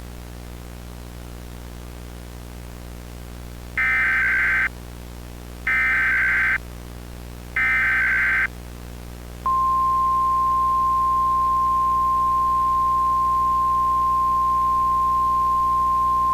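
Emergency Alert System test: three short bursts of digital SAME header data, a raspy warble about two seconds apart, starting about four seconds in. About halfway through, the single steady high attention tone begins and carries on. Before the bursts there is only a low electrical hum.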